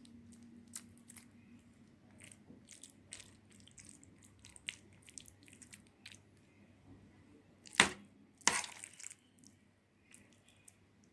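Food-preparation handling sounds: scattered light clicks and scrapes of utensils and food in a dish, with two sharp knocks about eight seconds in, under a second apart.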